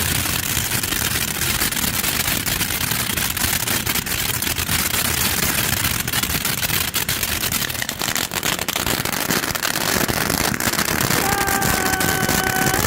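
SUNS Fireworks Peacock Fountain, a 500-gram ground fountain, spraying with a steady hiss and dense crackling. Near the end a steady high tone comes in over it.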